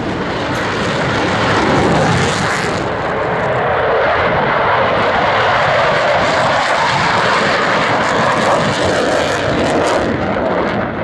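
A fixed-wing aircraft's engine running loud and steady, building over the first couple of seconds and easing off near the end.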